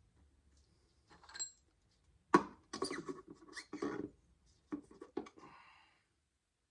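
Metal clinks, clatters and scrapes of a steel head stud being handled and threaded by hand into an aluminium engine block. A faint ringing clink comes about a second in, the sharpest and loudest clink just after two seconds, then a run of clatters and a short scrape ending at about six seconds.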